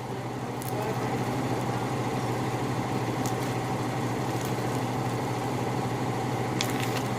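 Washing machine running with a steady low hum, vibrating hard enough to be felt.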